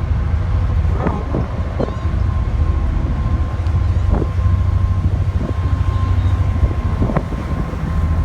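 Strong wind buffeting the microphone on a ferry underway: a loud, steady low rumble with uneven gusts and a faint steady whine.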